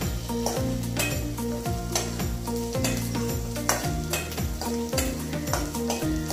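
Chopped onions and green chillies sizzling in hot oil in a metal kadai, with a steel ladle stirring and scraping against the pan in irregular clicks. Background music with a steady beat plays underneath.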